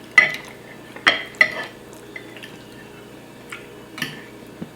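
Close-miked eating noises: wet mouth smacks and clicks of chewing. Three sharp ones come in the first second and a half, then a few fainter ones.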